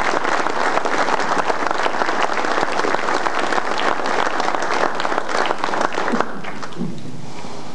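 Audience applauding with many hands clapping, cutting off suddenly about six seconds in.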